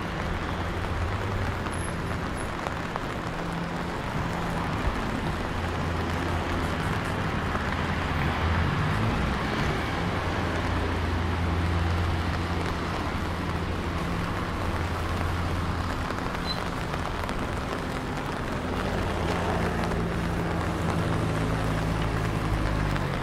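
Traffic on a wet city street: a steady hiss of car tyres on wet asphalt, with engine hum underneath.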